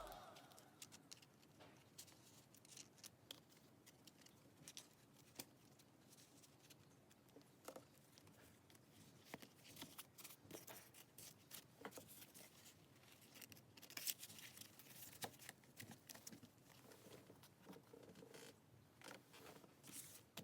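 Faint, scattered clicks and rustles of a parcel and its packaging being handled and opened, a little busier in the second half.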